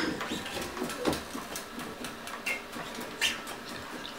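Faint scattered ticks and scrapes of electric guitar and bass strings played unamplified in a silent jam, with a couple of brief squeaks.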